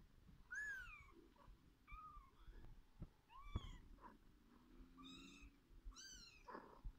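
Kitten mewing: about five short, thin, high-pitched mews that rise and fall in pitch, with a few soft knocks between them.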